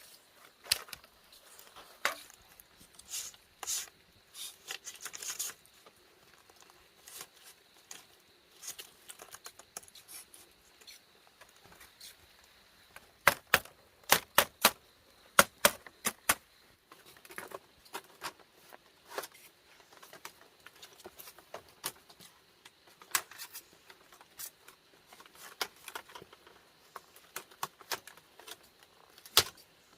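Irregular sharp clicks and knocks, as of objects being handled, with a quick run of about seven loud knocks near the middle.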